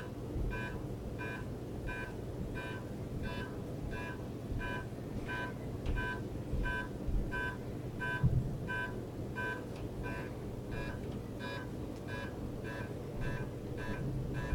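Countdown ticks from a PIC18F46K80 microcontroller clock: short electronic two-tone beeps, a chord made by its two PWM channels, about three every two seconds at an even pace, over a steady low hum. There is a soft low knock about eight seconds in.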